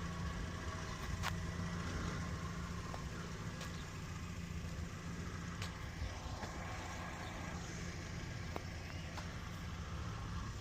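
Mk1 Ford Fiesta's petrol engine idling steadily soon after a cold start, with a few faint clicks over it.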